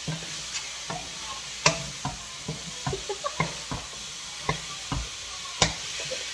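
Beef and vegetables sizzling in a wok as they are stir-fried, with irregular knocks and scrapes of a wooden spatula against the pan. Two knocks stand out, one just under two seconds in and one near the end.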